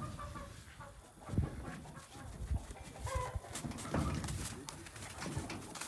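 Freshly beheaded chickens flopping on the grass, their wings beating and thumping against the ground in irregular bursts: the reflex thrashing after the head is pulled off. A brief chicken call comes about three seconds in.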